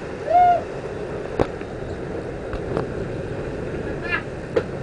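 Sportfishing boat running, with a steady drone of engine and rushing wake water. About half a second in there is a brief high-pitched call, the loudest moment. It is followed by a few sharp knocks and a short warbling high sound near the end.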